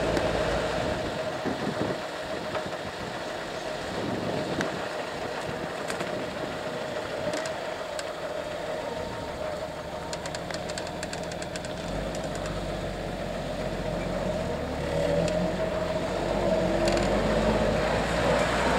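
Engine of an old Toyota Land Cruiser ute running at low revs as it crawls over rough, rutted dirt. The engine grows louder and deeper in the last several seconds as it comes closer, with scattered faint ticks partway through.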